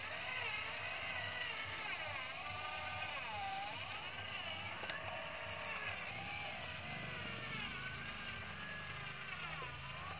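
Radio-controlled 4x4 scale truck's electric motor and gear train whining, the pitch sweeping up and down again and again as the throttle changes while it crawls over dirt. A low hum grows stronger over the last few seconds.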